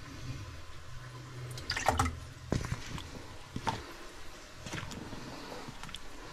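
A spoon stirring a pan of beef stew: the broth and vegetable chunks slosh, and the spoon knocks and scrapes against the pan several times, loudest about two seconds in.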